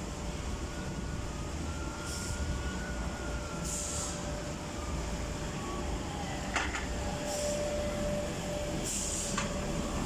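Toyota forklift's engine running steadily as the truck drives, with a faint steady whine, short hissing sounds every second or two, and a single sharp click about six and a half seconds in.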